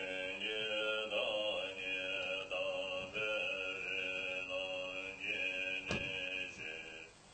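A Tibetan Buddhist monk chanting a prayer in one low, steady voice, held close to one pitch through a single long phrase between breaths. There is a short click about six seconds in.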